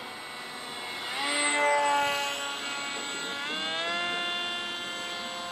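Electric RC foam jet's 2400kv brushless motor and 4.75-inch pusher propeller whining in flight. It swells loudest about a second and a half in, then the pitch climbs again about three and a half seconds in.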